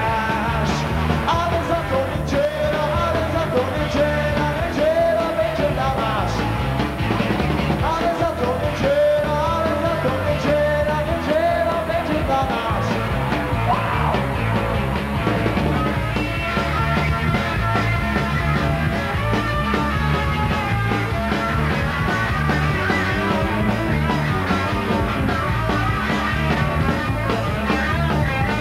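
Live rock music: a band with electric guitar, bass and drums playing over a steady beat.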